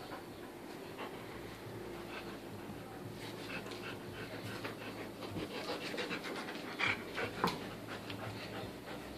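English Cream golden retriever puppy panting as it tugs and shakes a stuffed toy, with scattered small clicks and scuffles and two sharper clicks late on.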